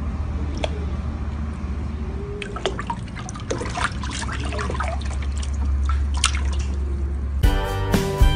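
Water splashing and dripping in a plastic tub as a cat's paw strikes at a fish in the water, in a run of short splashes. Music starts abruptly near the end.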